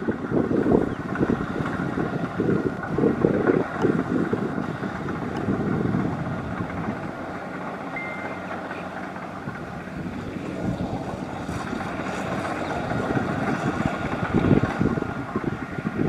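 Kubota DC-70 combine harvester's diesel engine and threshing machinery running steadily while it cuts rice. Gusts of wind buffet the microphone in the first few seconds and again near the end.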